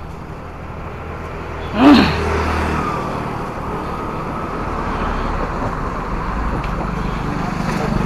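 Road traffic heard from a moving bicycle over a steady low wind rumble on the microphone. About two seconds in, a motor vehicle passes close and loud, and its pitch falls away as it goes by.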